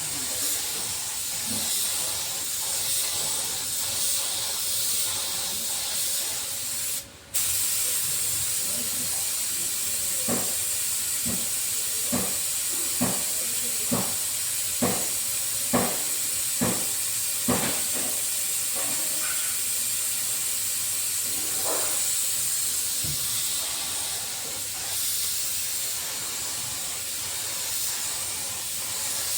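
Steady high-pitched hiss of a paint spray gun running on compressed air. It drops out briefly about seven seconds in, and a run of about nine short sharp ticks, roughly one a second, sounds midway through.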